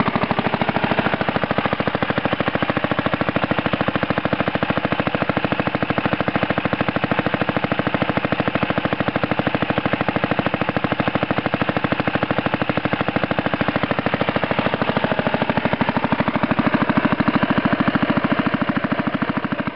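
Villiers Mk 15 small stationary petrol engine, fitted with a Tecumseh mower carburettor, running steadily with a fast, even train of firing pulses.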